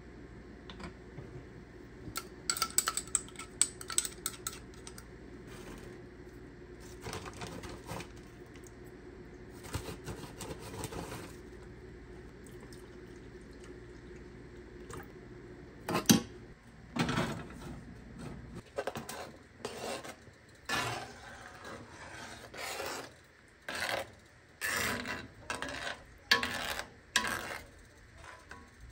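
Kitchen utensils clinking, knocking and scraping against pots and dishes. A few clinks come in the first seconds, then from about halfway a string of knocks and scrapes roughly once a second, over a low steady hum that stops a little past halfway.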